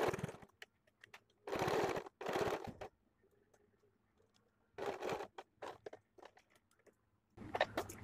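Electric domestic sewing machine stitching in short runs with pauses between them, about three runs of under a second each, as a seam is sewn. Near the end comes rustling of fabric with sharp clicks.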